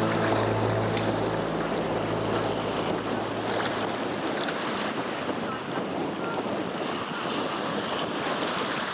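Wind buffeting the camera microphone over the sound of small waves breaking on a beach, with the tail of background music fading out in the first couple of seconds.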